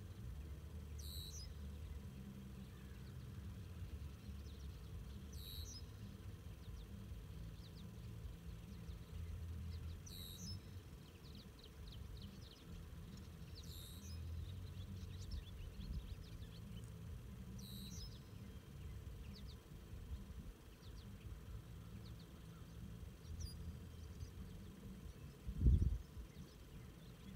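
A bird gives a short, high call about every four seconds, with a few fainter chirps in between, over a steady low rumble. A single low thump comes near the end.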